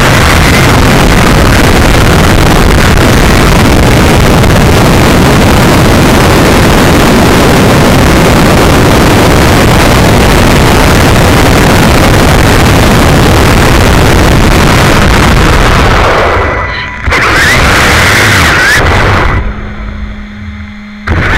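Wltoys K959 brushless RC buggy on a full-speed run, heard from its onboard camera: a loud, steady rush of wind, tyre and drivetrain noise. Near the end the brushless motor's whine rises in pitch twice, then comes a brief quieter spell with a steady low hum before the noise returns.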